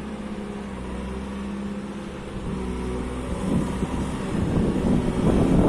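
JCB 3CX backhoe loader's diesel engine running steadily, then growing louder and rougher over the last two seconds or so.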